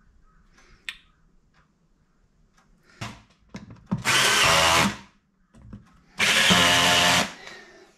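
A handheld power drill runs in two short bursts of about a second each, around four and six seconds in, its motor whine holding a steady pitch through each burst. Light clicks of handling come before them.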